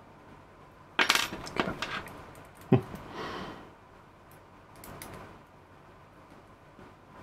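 Small metal clinks and clicks as an Allen key and an M3 screw are handled and fitted into a 3D-printed plastic tension knob: a quick run of clicks about a second in, one sharp click just before the three-second mark, then a short scrape.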